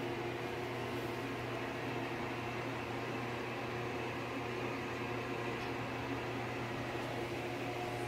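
Steady mechanical hum with a faint hiss: room tone with an appliance running.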